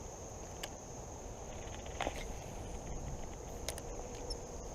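Steady high-pitched insect trill, like crickets, over a low constant rush, with a few light clicks about half a second, two seconds and three and a half seconds in.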